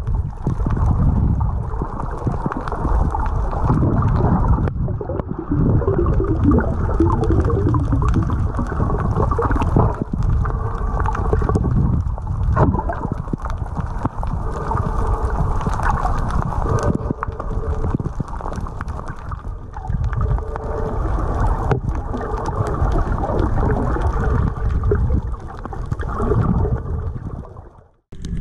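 Muffled water noise recorded underwater: sloshing and gurgling with occasional knocks. It fades out near the end.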